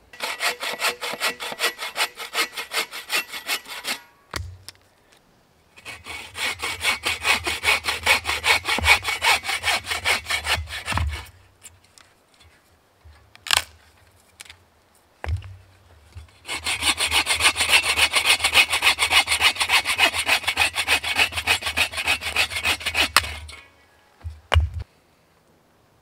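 Agawa Boreal21 folding bow saw cutting through a log in three bouts of quick, rhythmic push-and-pull strokes, with short pauses between them. A few single knocks of wood fall in the pauses.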